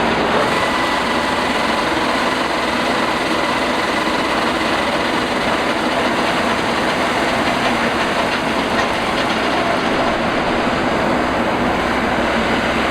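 Engine of a rice harvesting machine running steadily under load.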